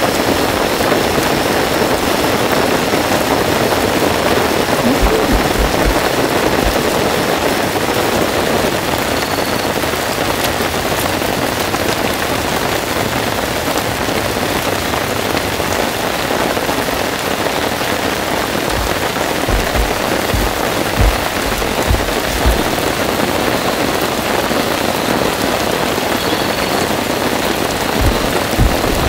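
Heavy rain falling steadily in an even hiss. A few dull low thumps come through about five seconds in and again in the last ten seconds.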